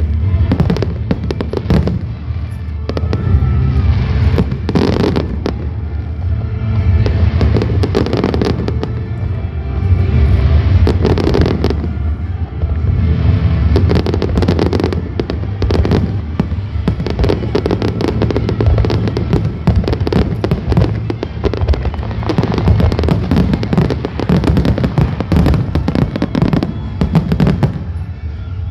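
Fireworks going off in rapid, dense volleys of bangs and crackles with no real pauses, over music playing underneath.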